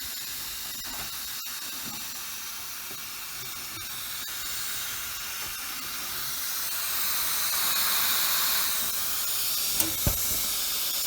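Refrigerant hissing steadily out of a leak in the Carrier heat pump's outdoor coil fin pack, getting louder partway through, with a couple of small taps near the end.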